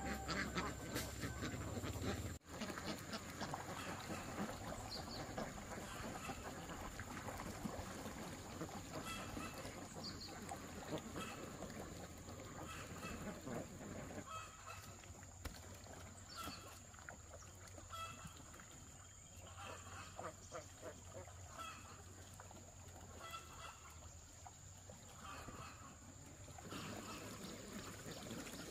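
White domestic ducks quacking, short calls repeating about once a second, with a steady high-pitched whine behind them.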